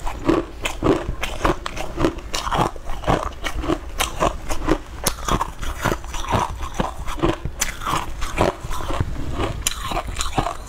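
Close-miked chewing of a soft, spongy green cake, with wet mouth sounds and sharp clicks repeating steadily about two to three times a second.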